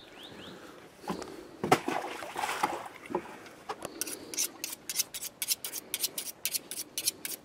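Fillet knife being sharpened on a steel honing rod: quick, even scraping strokes, several a second, starting about four seconds in, after a few scattered scrapes and knocks.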